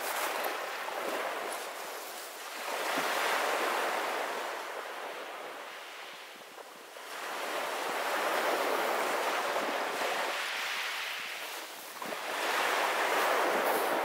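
Small sea waves breaking and washing over a pebble beach. The surf rises and falls in slow surges a few seconds apart.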